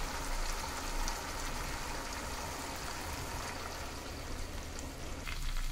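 Hot oil and chilli-cornflour masala sizzling steadily in a frying pan as a thick ground onion-tomato-cashew paste is poured in, then stirred with a spatula near the end.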